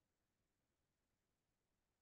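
Near silence: only a faint, even noise floor.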